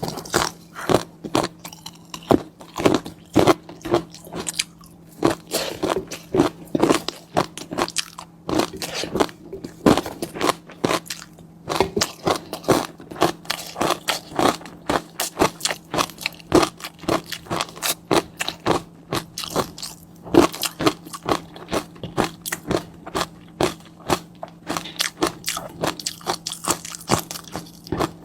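Close-miked eating: a person chewing with rapid, irregular crunchy clicks and wet mouth sounds, several a second, over a faint steady hum.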